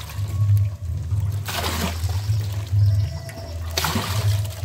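Milk poured from several cut plastic sachets into a large metal pot, trickling and splashing, with two louder gushes about a second and a half in and near the end. A steady low hum runs underneath.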